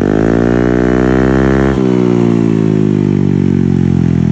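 Honda Click 125 scooter engine through a Kenochi K2 aftermarket exhaust in a sound check. It is revved up and held high for nearly two seconds, then the throttle snaps shut and the revs fall steadily back toward idle.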